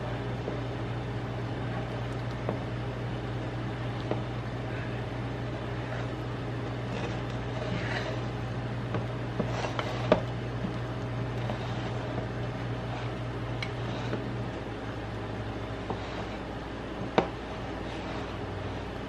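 A steady low mechanical hum from a kitchen appliance motor, with a few light clicks and taps of a silicone spatula against a ceramic bowl as flour is stirred into cookie dough.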